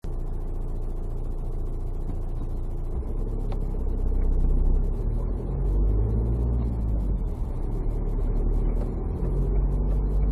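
Car being driven, a steady low engine and road rumble. From about three seconds in, music with a steady beat joins it.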